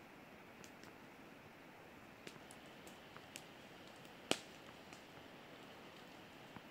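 Wood campfire crackling faintly: scattered irregular pops and clicks over a low steady hiss, with one sharper crack about four seconds in.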